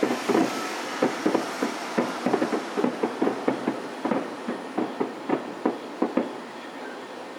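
A rapid string of aerial firework bursts heard from about 4 km away: muffled bangs, several each second, that thin out and stop about six seconds in.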